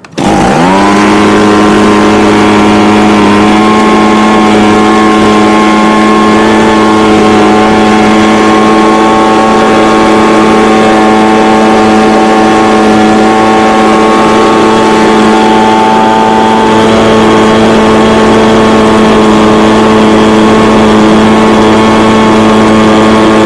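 Echo ES250 blower's two-stroke engine starting warm: it catches about a quarter second in, its pitch rises over half a second, then it runs loud and steady.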